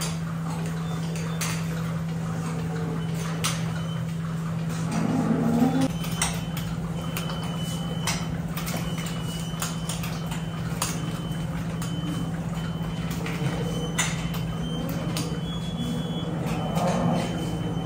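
Milking parlour machinery running with a steady hum, with scattered metal clicks and clanks from the milking units. A cow lows briefly about five seconds in and again near the end.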